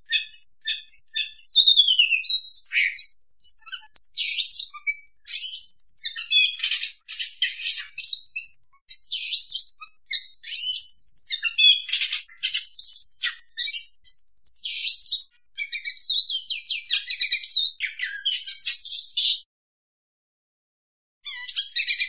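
Oriental magpie-robin (kacer) singing a fast, varied run of whistles and chirps. It stops about three-quarters of the way through and starts again briefly near the end.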